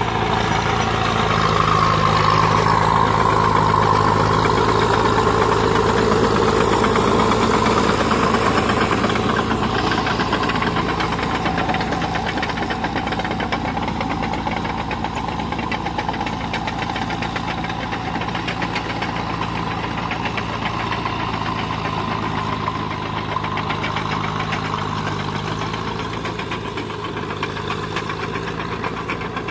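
Tracked tractor's diesel engine running steadily under load while its rotavator works a flooded paddy. The engine is loudest a few seconds in and then fades gradually as the tractor moves away.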